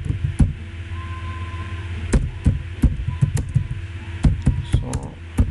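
Computer keyboard typing: irregular key clicks, several a second, over a steady low hum.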